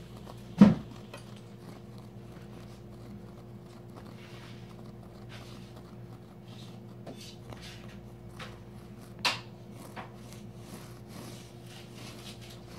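Steady low hum in a small room, with a sharp knock about half a second in and a softer knock about nine seconds in, and faint scattered clicks and rustles between them.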